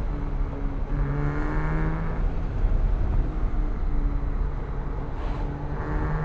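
Porsche 987.1 Cayman S's 3.4-litre flat-six driven through curves under changing throttle, its pitch falling and rising. It gets louder on acceleration about a second in and again near the end, over a steady low road rumble.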